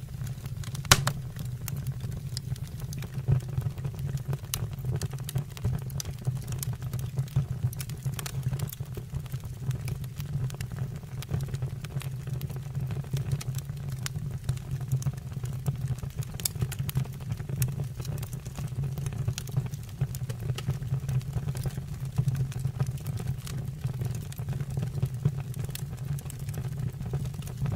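Fire burning in a fireplace, crackling with frequent sharp pops over a steady low rumble; one loud crack about a second in.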